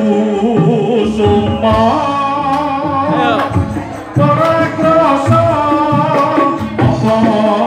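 A man singing through a microphone and PA over music with a steady beat.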